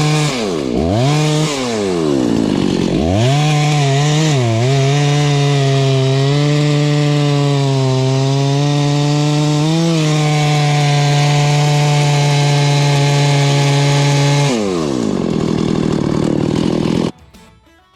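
Freshly rebuilt Husqvarna 288XP two-stroke chainsaw running hard. Its pitch drops sharply and climbs back twice near the start, then holds high and steady. About fifteen seconds in it falls to a lower, steadier note, and the sound cuts off abruptly near the end.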